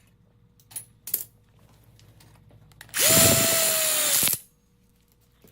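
Cordless drill driving a screw into a steel frame tube in one burst of a little over a second, about three seconds in, its motor whine dropping slightly in pitch under load. Two light clicks of metal parts being handled come before it.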